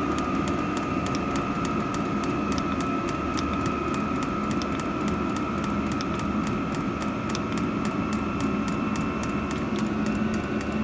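Diesel air heater running: a steady whir from its fan and burner with a high steady whine. The fuel dosing pump ticks evenly, about three to four times a second.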